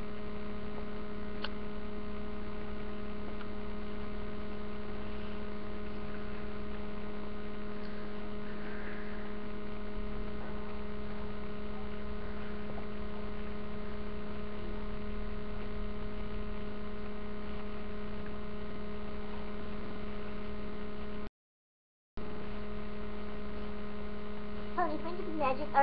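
Steady electrical hum with a few even overtones, picked up by a webcam's microphone. The sound cuts out completely for about a second near the end, and a voice starts just before the end.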